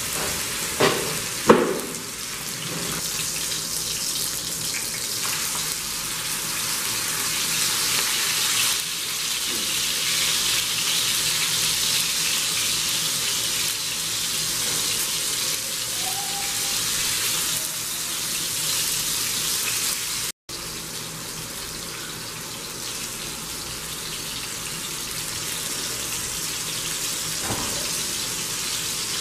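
Chicken chapli kebab sizzling as it shallow-fries in oil on a tava: a steady hiss, with a few knocks in the first two seconds and a brief dropout about two-thirds of the way through.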